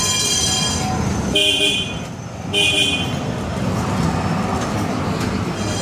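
Düwag M6 tram passing close by with a steady running noise, a high squeal at the start, then two short pitched warning toots a second or so apart, about a second and a half in.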